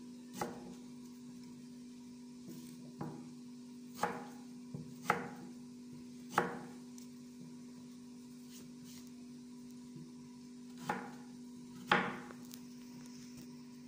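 Kitchen knife chopping through raw peeled taro, dicing it into cubes on a cloth: about eight separate knocks at an uneven pace. A steady low hum runs underneath.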